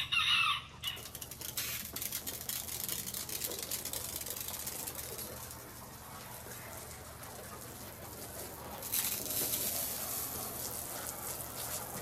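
A short, loud call from the deck's poultry right at the start, then a steady hiss with fine crackling that grows louder about nine seconds in as a garden hose sprays water.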